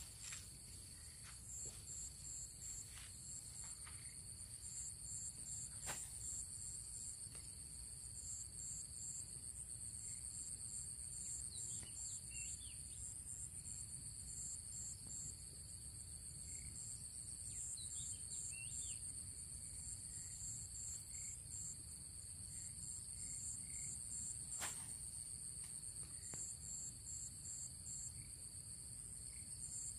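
Steady chorus of insects, high buzzing trills with a pulsing note beneath. A couple of short bird chirps come through in the middle, and two sharp clicks.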